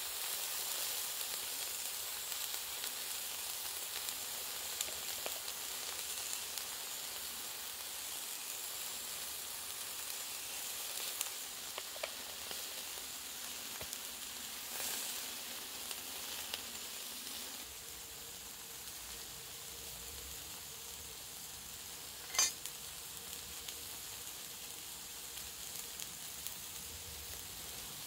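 Beef burger patty sizzling and crackling in a small enamel frying pan, a steady hiss that eases a little past the middle. One sharp click about two-thirds of the way through.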